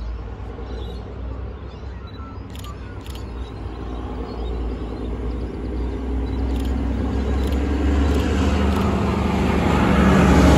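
XPT passenger train approaching on diesel power, the power car's engine and the wheel and track noise growing steadily louder as the leading power car draws past near the end.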